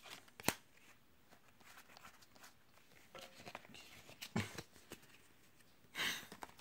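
Faint handling of trading cards: one sharp click about half a second in, soft scattered rustles of cards being moved and slid, and a short rustling burst near the end.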